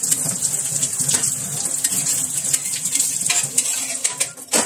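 Parathas frying in oil on a flat metal tawa: a steady high sizzle, with a metal spatula scraping and knocking against the pan a few times, the loudest knock near the end.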